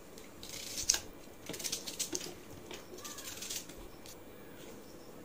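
Onions being peeled with a small knife: dry onion skin crackling and rustling in short scratchy spells, with a light click about a second in.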